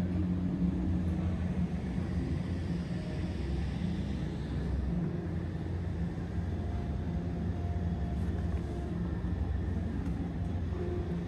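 Steady low background rumble with a faint hum running through it, typical of a large room's ventilation; no distinct knocks or clicks.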